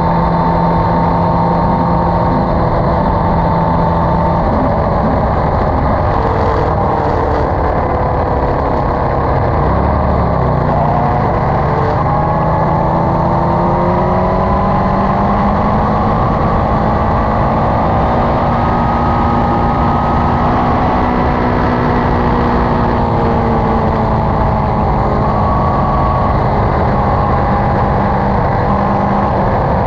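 Motorcycle engine running at highway speed, heard from on board over steady wind and road rush. The engine note dips and recovers about ten seconds in, then climbs gradually and eases back down in the second half.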